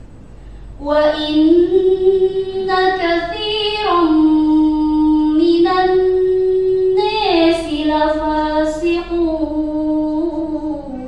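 A teenage girl reciting the Quran in the murattal style, her voice entering about a second in with long, held melodic notes that step up and down between phrases.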